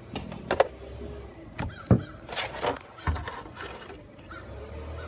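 Handling noise of objects being picked up and moved: a few separate knocks and clicks over a low steady hum.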